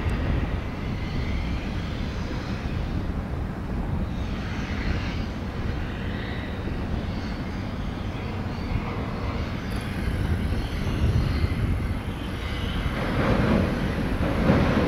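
Distant rumble of the diesel locomotives and passenger cars of a train crossing a steel railroad bridge, steady at first and growing louder near the end as it approaches.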